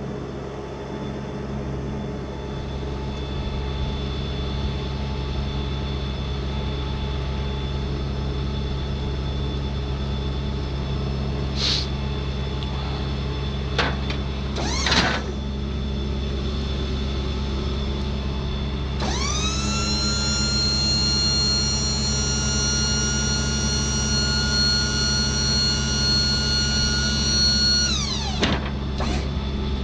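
Ford F550's Powerstroke diesel engine running steadily. About two-thirds of the way in, a high whine spins up, holds for about nine seconds, then winds down.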